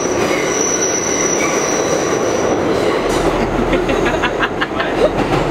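Moving New York City subway car heard from inside: loud steady rumble of wheels on the track, with a thin high wheel squeal that stops about halfway through.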